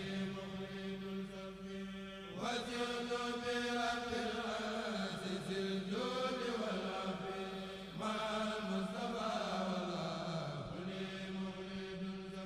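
Chanting voice over a steady low drone, in long held phrases that start afresh about two, six and eight seconds in.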